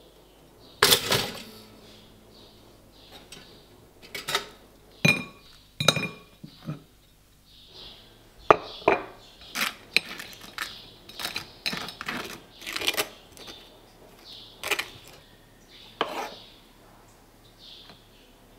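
Breakfast kitchen sounds: a loud metallic clack about a second in, then a few clinks of crockery and cutlery, followed by a table knife scraping peanut butter across toast in short repeated strokes and tapping on the plate.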